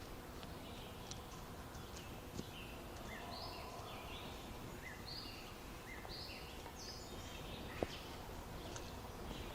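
Small birds singing, short chirping notes repeating every half second or so, over a faint steady outdoor background hiss.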